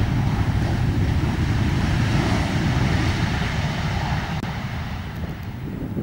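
Jet engines of a Boeing 737 airliner rumbling as it touches down and rolls out on the runway. The roar swells about two seconds in and eases off near the end.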